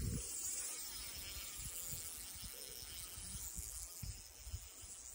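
Insects chirping in a steady, high-pitched chorus, with a few low thumps, the loudest right at the start.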